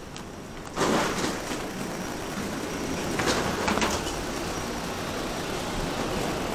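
Steady mechanical noise inside an airport jet bridge, rising suddenly just under a second in when the bridge is entered, with a few rattling clicks about three to four seconds in.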